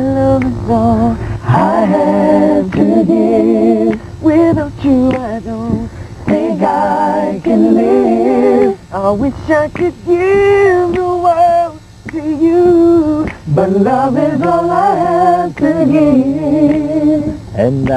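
A woman and a man singing together without accompaniment, in phrases of held notes with vibrato and brief breaks between them.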